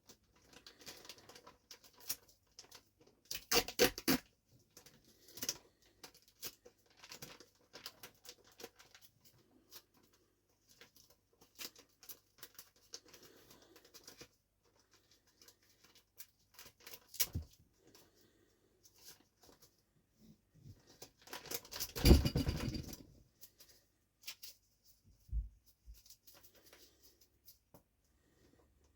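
Plastic mushroom grow bag being handled and sealed: crinkling and scattered small taps and clicks, with louder rustles about 4 seconds in and again about 22 seconds in.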